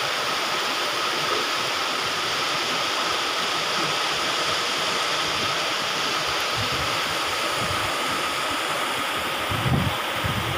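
Muddy floodwater rushing steadily across a road: a river in spate after heavy rain. Near the end, low gusts of wind buffet the microphone.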